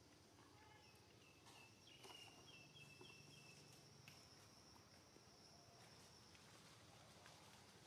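Near silence: faint outdoor ambience with a thin, steady high insect whine lasting a few seconds and a brief run of quick distant bird chirps early on.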